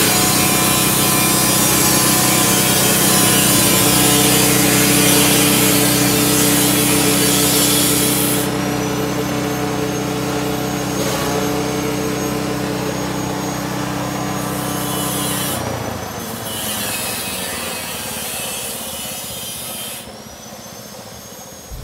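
YM3000 grass chopper running on its small engine, loud shredding as cassava stems and leaves are fed into the cutter. The shredding eases about eight seconds in and the machine runs on lighter; about fifteen seconds in the engine note cuts out and the cutter spins down, fading away.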